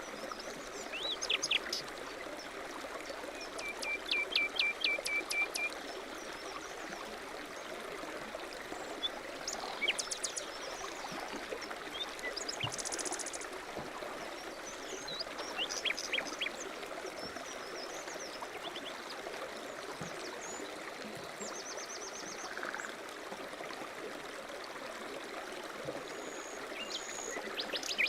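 Steady rushing of a mountain stream, with several songbirds calling over it in short chirps and quick runs of repeated high notes.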